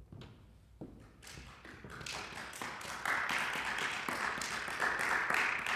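Audience applauding at the end of a piano piece: after a light thump near the start, scattered claps begin about a second in and swell into steady applause.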